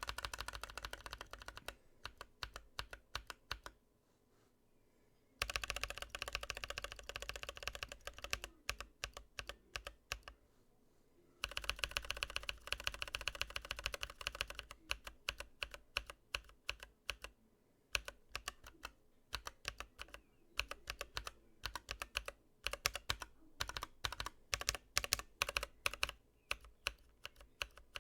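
Typing on a Skylong GK96s mechanical keyboard with Akko Ocean Blue tactile switches and PBT keycaps: fast runs of key clacks broken by two brief pauses, then slower, scattered keystrokes.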